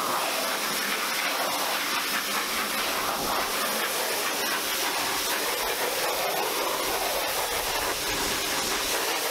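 Pressure washer jet spraying water against the underside of a car bonnet, a steady hiss of spray as the cleaning product is rinsed off.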